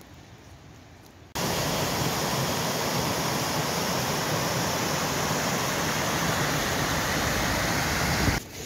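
Small waterfall on a rain-swollen stream, white water pouring over rock: a loud, steady rush that starts suddenly about a second in and stops near the end.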